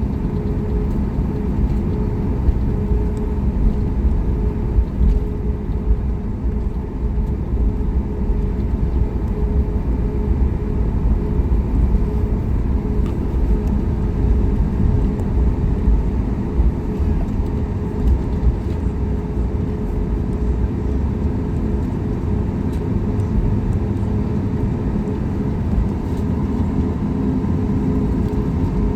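Cabin noise of a Boeing 737 MAX 8 taxiing: its CFM LEAP-1B engines at idle thrust with a steady low rumble and a few steady tones running through it.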